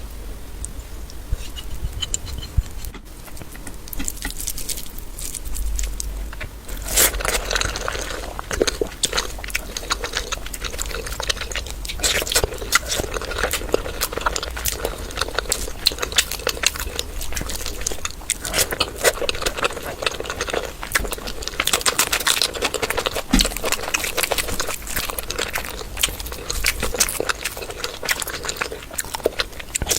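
Close-up eating sounds: chewing and mouth smacking, a dense run of quick wet clicks that starts about seven seconds in after a quieter opening.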